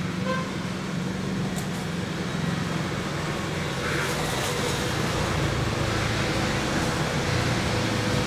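Xiaomi Roborock S7 robot vacuum cleaning the floor, its suction motor giving a steady hum, with a few faint clicks.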